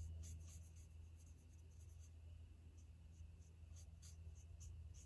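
Faint scratching of a Stampin' Blends alcohol marker tip colouring on cardstock, in short irregular strokes over a low steady hum.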